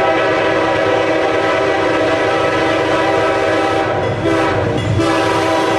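Nathan K5H five-chime air horn sounding a chord: one long blast that ends about four seconds in, a brief short blast, then another long blast starting near the end, the short-then-long close of a grade-crossing signal. A low train rumble runs underneath.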